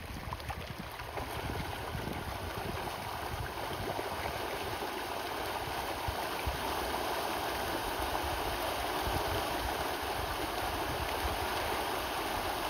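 A large school of fish thrashing at the water's surface in a feeding frenzy: a continuous churning splash that grows a little louder over the first few seconds.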